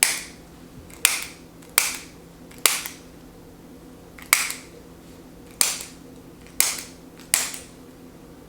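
Chiropractic activator adjusting instrument firing eight sharp clicks, roughly one a second, as its spring-loaded tip delivers adjustment impulses.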